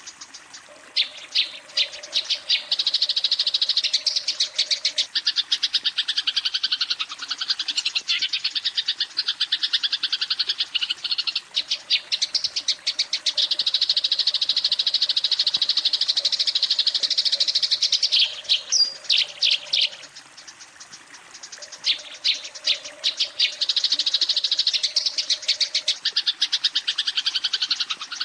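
Eurasian tree sparrow giving a fast, agitated chatter of chirps in long runs, breaking off briefly about eleven and twenty seconds in. This is the fighting call, used to challenge a rival.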